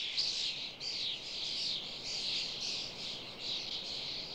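A large flock of common starlings chattering, a dense, unbroken wash of many high overlapping calls.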